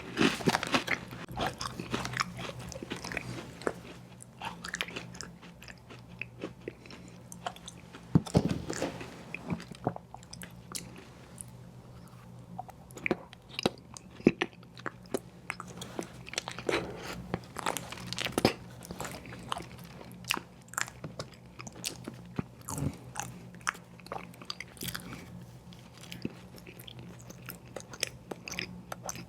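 Close-miked eating of ice cream sandwiches: irregular bites and chewing with many small crunchy clicks, over a faint steady low hum.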